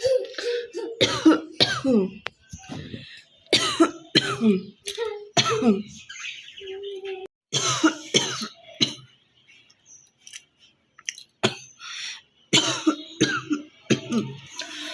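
A woman coughing in repeated bouts, several coughs at a time, with throat clearing as she hawks up phlegm. There is a brief lull about two-thirds of the way through.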